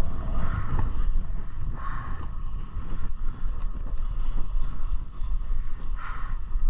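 Wind buffeting a body-worn camera's microphone as a rider skis downhill on short snowblades, with three short scraping swishes of the ski edges on groomed snow.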